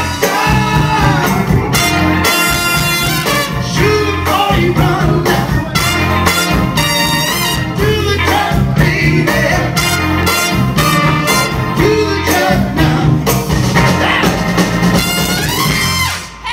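Live soul band playing an up-tempo Motown number, with drums, bass, horns and a singer, loud and steady, dipping briefly just before the end.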